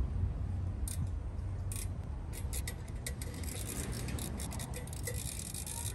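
Light metallic clicks and scrapes of hand tools working on a rusted old fan, scattered at first, then a quick run of clicks from about halfway through.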